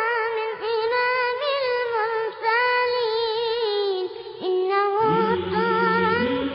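An a cappella Arabic nasheed: a solo voice sings a slow, ornamented melody in phrases with short breaks. About five seconds in, low humming backing voices come in beneath it.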